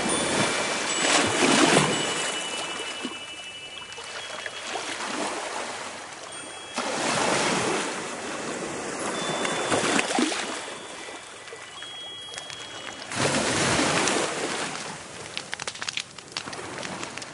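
Sea waves washing ashore in three surges about six seconds apart, each swelling and then fading. Faint chime tones ring between them.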